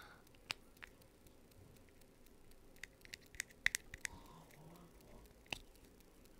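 Small plastic toy packaging being handled and picked open by fingers: scattered quiet clicks and crinkles at uneven intervals.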